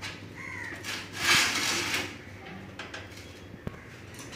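Steel computer case sliding and scraping on a concrete floor as it is handled and set upright: a loud rasping scrape about a second in, lasting under a second, with a short squeak before it and a single sharp click near the end.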